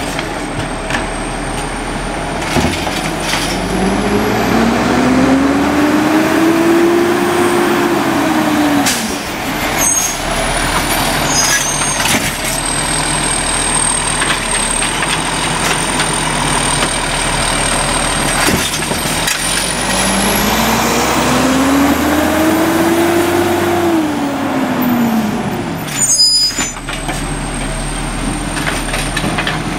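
Heil CP Python automated side-loader garbage truck at work: its diesel engine revs up and back down twice while the hydraulic arm lifts and dumps a cart, with a rising and falling pump whine each time. A few metal knocks come from the cart and arm against the hopper, and there is a short hiss of air brakes near the end.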